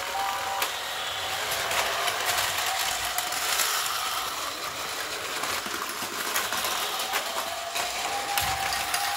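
Plarail battery toy train set running: the small electric motor's faint whine over a steady clatter of plastic gears and wheels on plastic track, with many small clicks. The whine rises slightly near the end.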